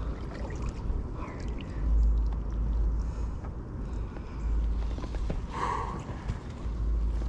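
A plastic sit-on-top kayak being paddled: the paddle dipping and water sloshing against the hull, under a low rumble of wind on the chest-mounted camera microphone.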